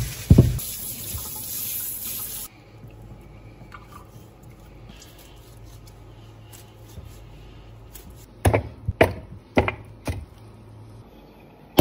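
Kitchen tap running into a stainless steel sink over raw lamb legs, the water stopping about two and a half seconds in. Later come four sharp knocks in quick succession as a knife chops at a lamb shank.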